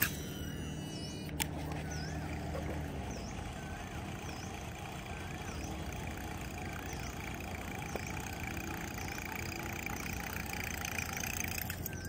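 Steady low outdoor rumble by the water, with a bird giving a short whistled call about once a second. Sharp clicks come near the start and again about a second and a half in.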